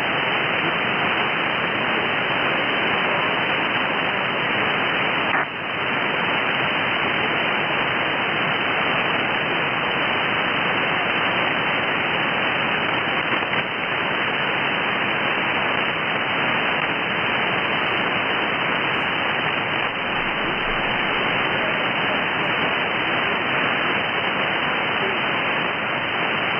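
Steady shortwave static hiss from an Airspy HF+ Discovery software-defined radio receiving in upper sideband on a channel with no station coming through, with a brief dip about five seconds in.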